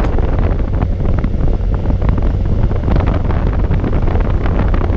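Strong wind blasting across the microphone: a loud, steady low rumble that rises and falls in gusts.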